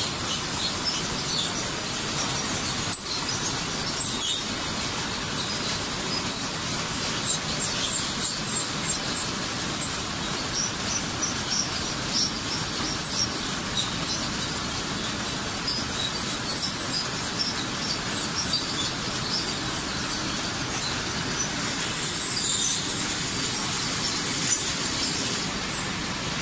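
Tortilla production line running: the oven and conveyor machinery make a steady mechanical noise, with many small rapid clicks and ticks and a few louder clicks.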